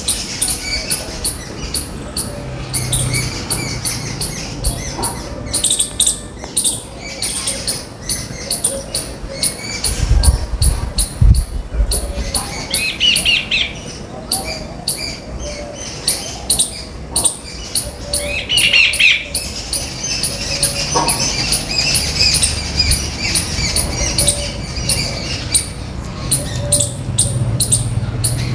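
A flock of small birds chirping and calling in many short overlapping notes. A few low thumps come about ten seconds in.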